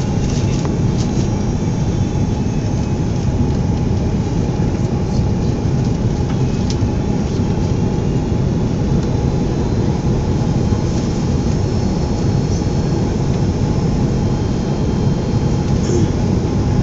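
Steady cabin roar of an Airbus A330 on final approach: engine and airflow noise heard from inside the cabin, with a steady mid-pitched hum running through it.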